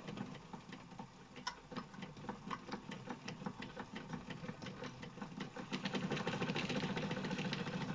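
Wilesco toy steam engine running, driving a model grinding wheel and circular saw through thin drive belts. The sound is a steady mechanical whir with rapid ticking, growing a little louder near the end.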